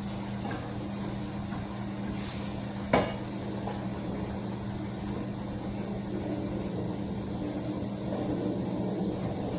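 Chicken frying in a pan, a steady sizzle over a low steady hum, with one sharp knock about three seconds in.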